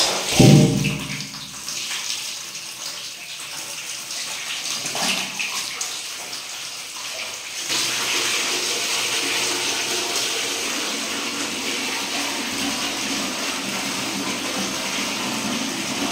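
Water running and splashing in a bathtub, with the flow becoming louder and steadier about eight seconds in. A short loud sound comes about half a second in.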